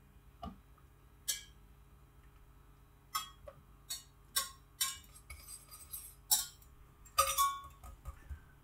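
A wire whisk clinks and scrapes against the inside of a stainless-steel saucepan while butter is stirred as it melts. There are about a dozen short, irregular metal clinks.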